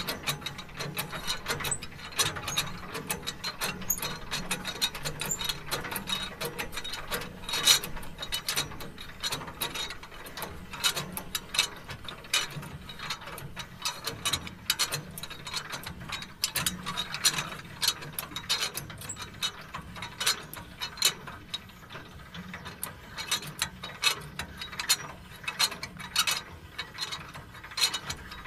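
Trailer tongue jack being cranked down, its gears clicking rapidly and irregularly as the tongue lowers onto the hitch.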